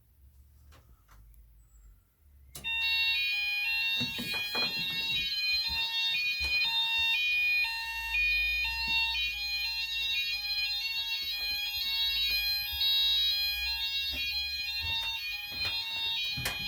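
Fire alarm sounders, a Klaxon Universal sounder base and a SeaTech active sounder, start together about two and a half seconds in, sounding overlapping alternating two-note Apollo-type tones over a steady tone, with pitch changes about twice a second. The system has gone into alarm from an optical smoke detector under test.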